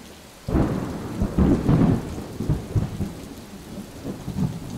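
Thunderstorm sound effect: thunder rumbling over rain. It comes in about half a second in, is loudest over the next second and a half, then tails off.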